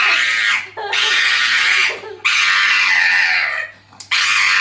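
A small dog's shrieking, screaming cries: four long, loud ones with short breaks between them.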